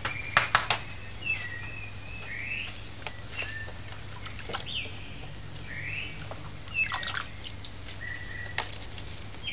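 Hands swishing broccoli florets in a saucepan of water, with splashes and drips as pieces are lifted out, loudest about half a second in and again near the seventh second. Small birds chirp throughout in the background, short sliding calls about once a second.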